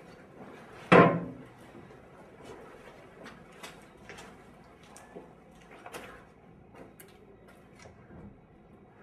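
A door bangs shut about a second in, ringing briefly in the room, followed by faint scattered clicks and knocks.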